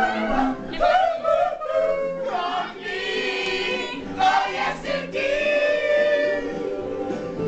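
A group of male and female voices singing together, karaoke-style.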